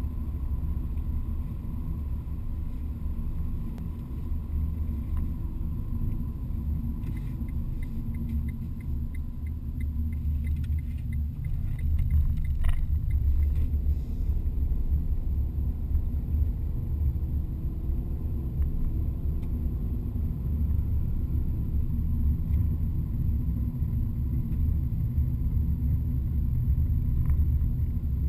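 Steady low rumble of a car's road and engine noise heard from inside the cabin while driving, growing a little louder about halfway through. Faint, evenly spaced ticking runs for a few seconds about a third of the way in.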